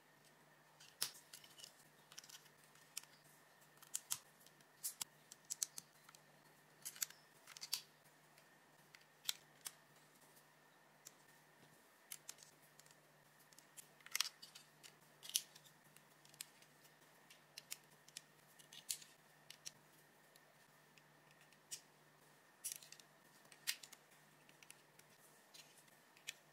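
Plastic LEGO bricks being pressed and snapped together by hand: irregular sharp clicks as the studs seat, a few every couple of seconds.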